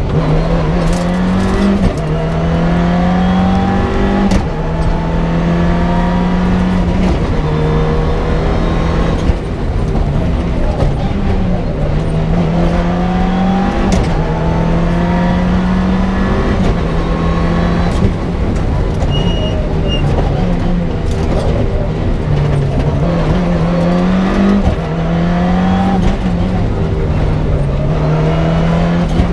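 Mitsubishi Lancer Evo 6's turbocharged four-cylinder engine heard from inside the rally car's cabin on a special stage, revving up and dropping back again and again as the driver works through the gears, with occasional sharp clicks.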